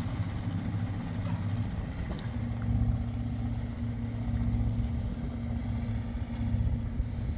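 A steady low engine-like hum running without a break.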